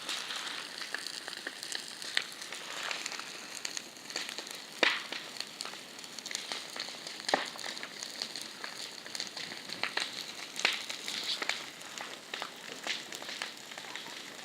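Bonfire with a burning tyre in it, crackling and hissing steadily with sharp pops scattered throughout, the loudest about a third of the way in and again about halfway. The burners put the noise down to the tyre shrinking as it heats so that its steel wires poke through.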